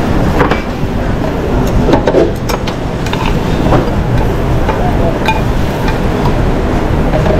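Steady low rumble of a busy restaurant kitchen, with metal tongs clicking and clinking against a skillet several times as carrots are lifted out of it.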